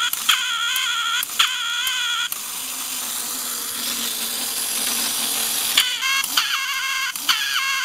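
Wind-up tin toy duck (Köhler N°47, 1955) cackling in squeaky bursts about once a second, each set off by a click of its mechanism. About two seconds in, the cackling stops and the clockwork motor whirs steadily as the duck waddles. The cackling starts again near the end.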